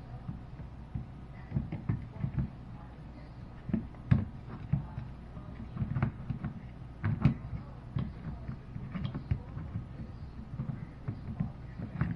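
Irregular knocks and taps, a few at a time, over a low steady hum.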